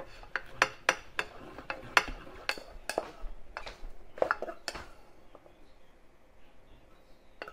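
Kitchenware being handled on a wooden counter: a plate and a metal saucepan clinking and knocking. The knocks come about three a second for the first five seconds, then die away.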